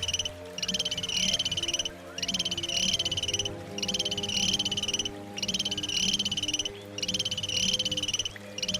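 An animal call repeated steadily: rapid pulsing trills, each about a second and a half long, broken by short gaps about six times over.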